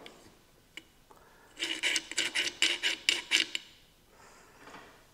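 Metal parts of an old Rockwell circular saw's base rubbing and scraping against each other as they are handled around a threaded stud: a faint click, then a quick run of about eight short rasping scrapes lasting about two seconds.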